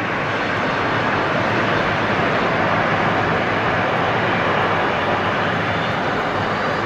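Boeing 747-400 airliner's four jet engines running steadily as it lands and touches down, a continuous, even jet noise with a faint high whine coming in near the end.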